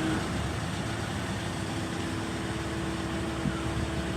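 Engines idling aboard a cable-hauled car ferry: a steady low rumble with a faint hum over it.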